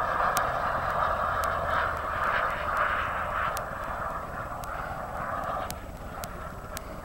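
Radio-controlled model airplane flying high overhead: a steady rushing engine noise that grows fainter over the last few seconds as the plane draws away.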